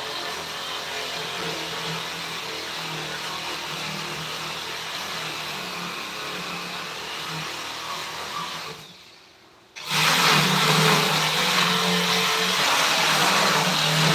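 An electric power tool's motor running steadily with a hum and a noisy whir. It dies away just before ten seconds in, then starts up again suddenly and runs louder.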